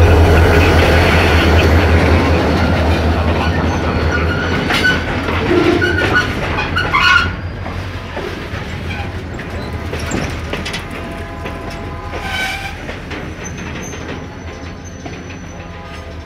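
Diesel locomotive rolling slowly, heard from on board. Its engine drone is strong at first and fades after about four seconds, and the wheels knock and clatter over the rail joints.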